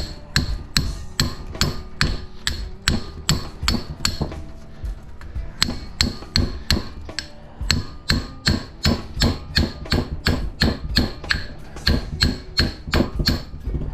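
Hammer blows on metal, about three a second with a short ring after each, knocking at a scrap electric motor to free its copper windings.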